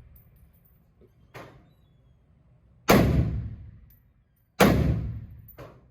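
M1 Garand rifle in 7.62×51 firing: two loud shots about a second and a half apart, each trailing off in a long echo. Two fainter, sharper cracks come before and after them.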